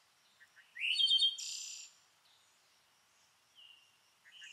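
Short high-pitched electronic chirps with a quick rising sweep about a second in, then a few fainter blips near the end: cartoon-like sound effects of an animated logo, with no background sound under them.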